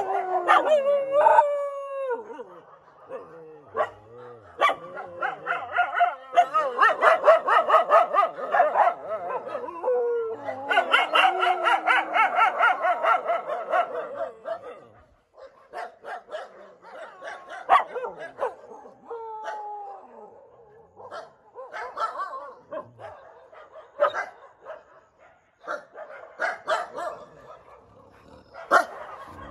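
Several street dogs barking and howling over one another, with falling howl-like cries at the start, two loud flurries of rapid barking about six and eleven seconds in, then scattered single barks. This is typical of rival packs warning each other off while probing territory.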